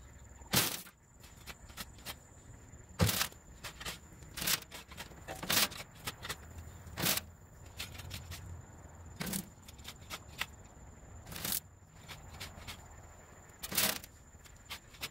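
Metal garden shovel scraping into a pile of finished compost and tossing scoops onto a hardware-cloth sifting screen: a sharp scrape or thud every second or two, about eight in all.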